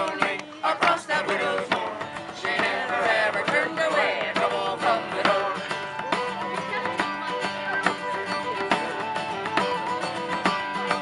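Instrumental break of a Celtic folk song: acoustic guitar strumming, a whistle and a fiddle playing the melody, and a hand frame drum keeping a steady beat.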